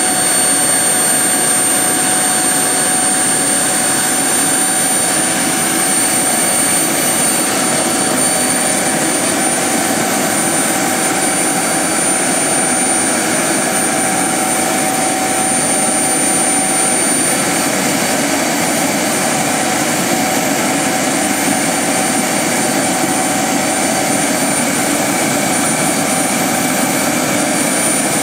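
Turbine engine of a Boomerang XL radio-controlled model jet running steadily: a continuous roar with a thin high whine that holds nearly level in pitch.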